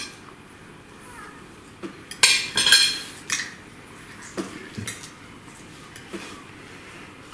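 Cutlery clinking and scraping on a plate while taking a first taste of baked cannelloni: a cluster of sharp, ringing clinks a little over two seconds in, then a few lighter taps.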